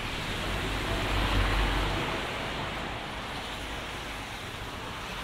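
Steady hiss of rain and traffic on a wet road, with a bus passing close by about a second in, its low rumble swelling and then fading.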